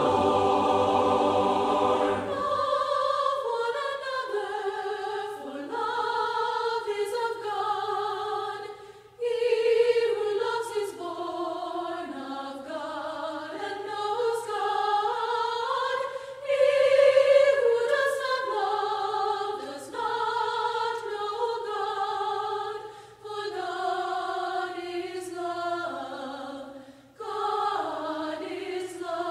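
Background music: a choir singing in several voice parts, in long held phrases with short breaks between them.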